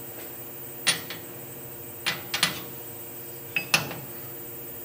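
Steel 1-2-3 blocks set down and shifted on a CNC mill's T-slot table: a handful of sharp metal clinks, spread over the few seconds, with a pair close together in the middle and another near the end.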